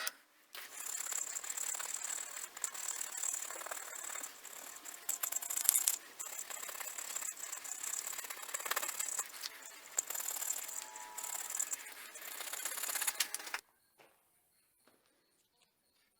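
Shop work shaping and fitting a wooden sword handle: irregular scraping and rattling with a high whine that comes and goes, stopping abruptly near the end.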